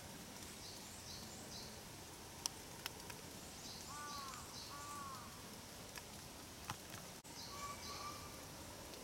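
Faint, steady rain, with a few sharp taps of drops hitting an umbrella. Birds call over it: short high chirps in quick groups of three, and two lower arched calls about four and five seconds in.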